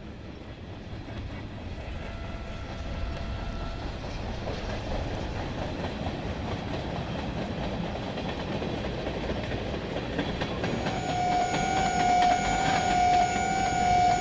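Train sound effect: a rumbling train that grows steadily louder as it approaches. A steady, loud pitched tone, like a train horn or whistle, joins near the end.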